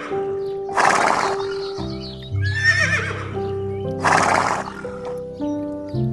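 A horse whinnying, the same call repeated about every three seconds, over background music with held notes.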